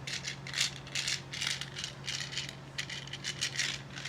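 Homemade fidget sound maker, a plastic puzzle ball with its sponge removed, shaken so that it rattles in quick, uneven bursts, several a second.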